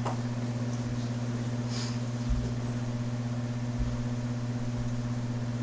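Steady low electrical hum of room noise, with two soft low thumps in the middle.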